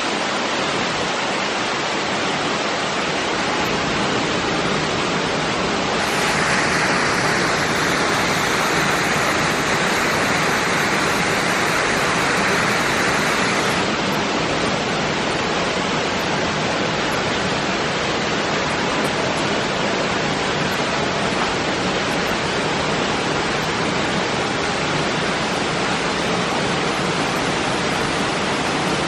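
Steady rush of falling water, like a waterfall or fast stream. From about six to fourteen seconds in it is brighter and a little louder.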